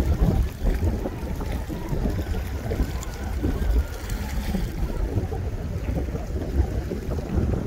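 Wind buffeting the phone's microphone: a gusty low rumble that rises and falls throughout.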